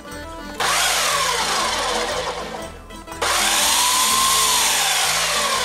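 Countertop blender puréeing peeled tomatoes in two runs: it starts about half a second in, stops just before three seconds, then starts again a moment later. Its motor whine drops in pitch as it runs.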